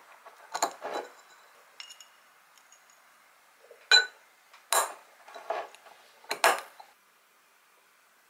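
Glass storage jar being taken apart by hand: its glass lid and metal clips clink and knock against the jar and the table in a handful of short, sharp strikes, one of them ringing briefly.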